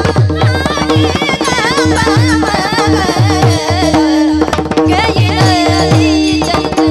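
A woman singing a Marathi Warkari abhang in a wavering, ornamented melody, over a steady drone, regular hand-drum strokes and the clash of brass tal hand cymbals. The melody breaks briefly about four seconds in, then resumes.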